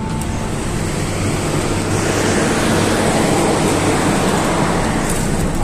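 Steady rushing noise with a low hum from a metro train standing at the platform with its doors open, its air-conditioning and equipment running. It grows a little louder about two seconds in, as the doorway is passed.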